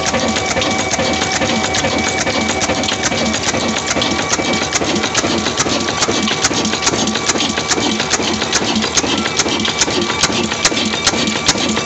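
Old 26 HP desi diesel engine running steadily under load, driving a chakki flour mill, with a dense mechanical clatter and a regular knock about two to three times a second that grows sharper near the end.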